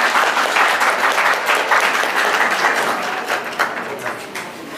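A roomful of people applauding, a dense patter of many hands clapping that thins out and fades near the end.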